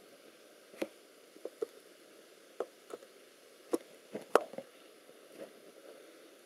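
A dozen or so short, irregular clicks and taps over a quiet background, the loudest a little past four seconds in.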